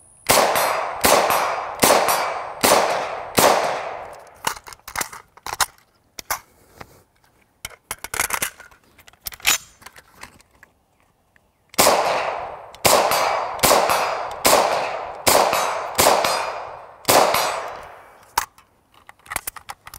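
Ruger Mini-14 .223 semi-automatic rifle firing five shots about a second apart. Then come the clicks and clacks of its rock-and-lock magazine being swapped and the side charging handle being worked. Then a second string of about seven shots at the same pace, and more handling clicks near the end.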